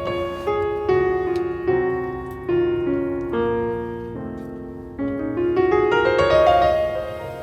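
Background piano music: a melody of single notes with a quick rising run about six seconds in.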